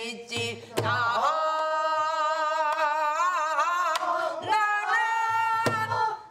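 A woman singing Korean folk song in long held notes with a wide, wavering vibrato, in two phrases, with a few low drum thuds under the start of each phrase.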